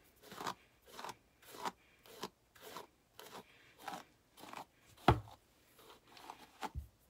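Paddle hairbrush dragged through a long synthetic wig in quick repeated strokes, just under two a second, with one sharp knock about five seconds in.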